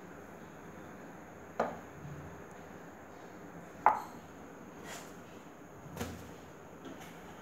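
A wooden rolling pin knocking against a round chapati rolling board. There are two sharp knocks, the second the loudest, then a few softer taps, over a steady low background noise.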